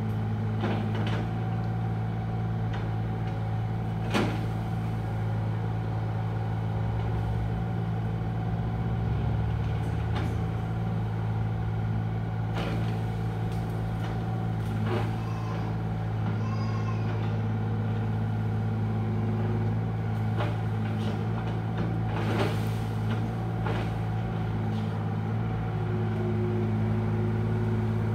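Diesel engine of an earth-moving machine running steadily while it prunes trees, with a few sharp knocks and cracks scattered through, the loudest about four seconds in and again near twenty-two seconds.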